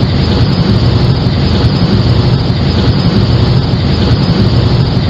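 Loud, steady rumbling noise picked up by a doorbell camera's microphone.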